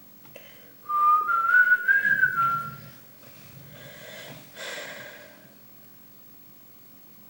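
A person whistling a single note for about two seconds, sliding slowly upward and dipping at the end, followed a couple of seconds later by a short, fainter breathy noise.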